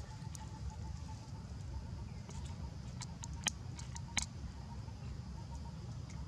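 Steady low outdoor rumble with a faint high hum, broken by a few sharp dry clicks and crackles about three to four seconds in: a baby long-tailed macaque picking through dry leaves and food scraps on a stone ledge.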